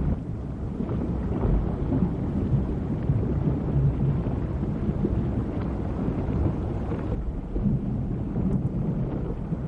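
Steady low rumbling water noise, as heard underwater near the surface.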